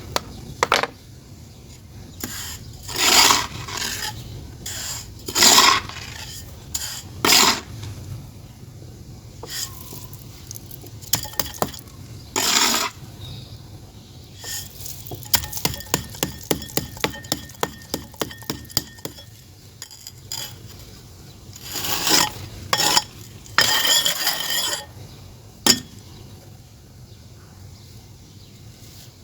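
Clay being shaped by hand: scraping and rubbing strokes on a clay pot, with a run of quick light taps in the middle and more scrapes near the end.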